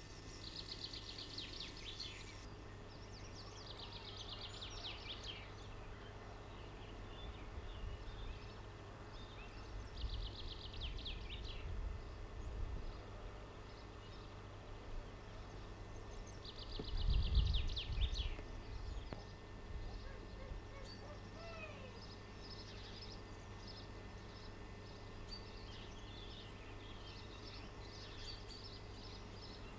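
A songbird singing short rapid trills, repeated every few seconds, with scattered chirps near the end, over a steady low hum. A low rumble swells briefly a little past the middle.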